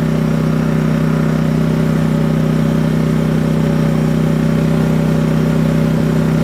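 Firman WH03242 dual-fuel inverter generator running steadily on propane with no load, freshly started, its engine holding an even, unchanging pitch.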